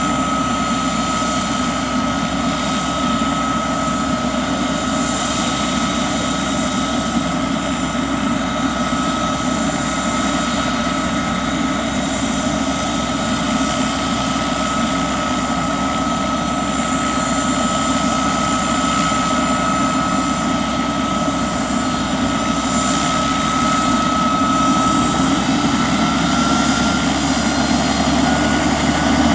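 Bell 206B-3 JetRanger III helicopter running, with a steady turbine whine over the rotor noise. About 25 seconds in, the whine rises a little in pitch and the sound grows slightly louder.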